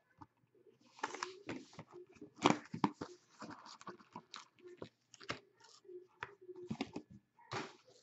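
Plastic shrink-wrap being cut and torn off a cardboard Upper Deck Contours hockey card box, then the box pulled open and its packs handled: irregular crackling, rustling and scraping, loudest about two and a half seconds in.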